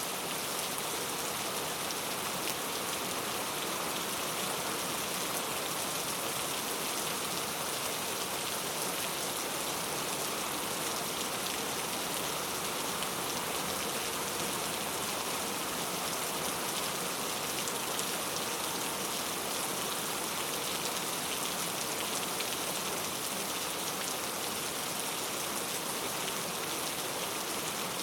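Steady rain falling, an even hiss of many drops on a surface with no let-up.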